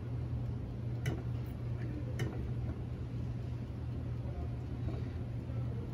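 Steady low hum of kitchen equipment, with two light clicks of a metal fork against a plastic container, about one and two seconds in.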